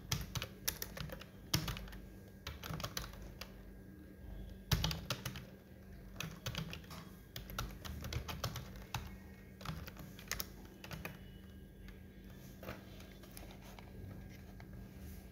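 Computer keyboard being typed on: irregular runs of key clicks, thickest in the first couple of seconds, over a steady low hum.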